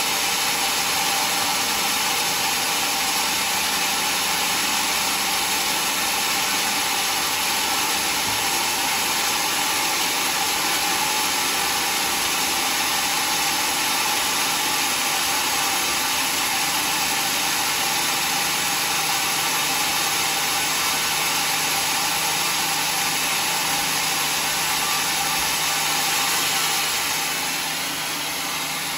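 Vertical band sawmill running steadily without cutting, a constant whirring hiss; it drops a little in level near the end.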